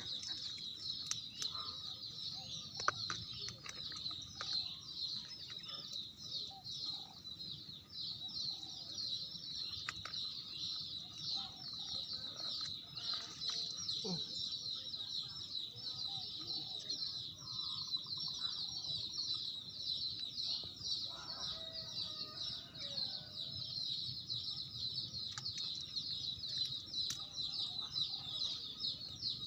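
Outdoor ambience: a steady, fast-pulsing high-pitched chorus, typical of insects, with faint clucking of chickens underneath.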